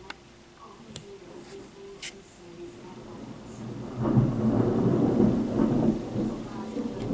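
Hands handling a breadboard circuit: a few light clicks of jumper wires and parts, then from about four seconds in a low rustling rumble lasting about three seconds as a jumper wire is moved across the board.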